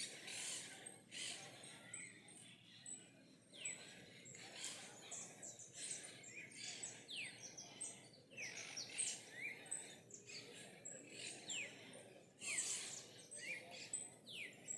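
Several birds chirping and calling, with many quick falling whistles and short high notes, over a faint steady outdoor background.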